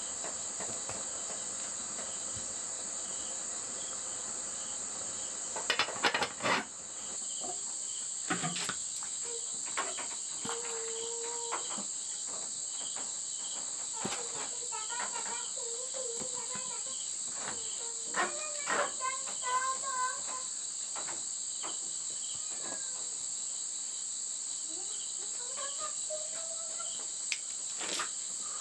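A steady, high-pitched chirring of insects such as crickets or cicadas that does not let up. A cluster of sharp knocks comes about six seconds in, with a few lighter clicks later.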